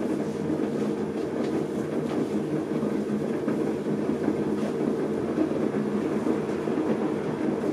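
Electric potter's wheel running at a steady speed while a clay cylinder is shaped on it: a continuous rumble with a faint steady hum.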